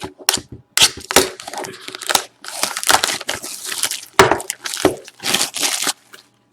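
A trading-card box and its wrapping being torn open by hand: quick bursts of crackling, crinkling and tearing of plastic and cardboard that stop about six seconds in.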